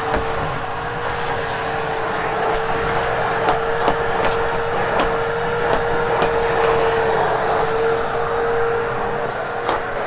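Vacuum cleaner running steadily on carpet, a constant motor whine over a rushing of air, with scattered sharp ticks as grit and debris are picked up during a thorough pre-vacuum of heavily soiled carpet.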